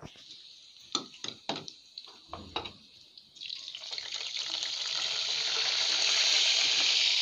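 A few light clicks of a metal spoon against a steel pot, then from about three seconds in, hot oil sizzling loudly and steadily around browned onion and crushed garlic as the tempering is stirred.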